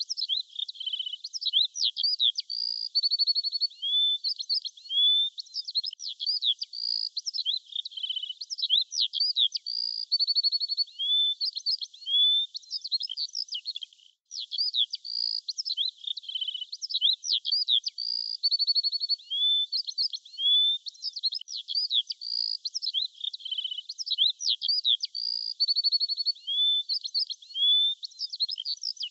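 Birdsong: a busy run of high, quick chirps, rising and falling whistles and short buzzy trills from small songbirds. The song breaks off briefly about fourteen seconds in, then the same stretch of song starts over, as in a looped recording.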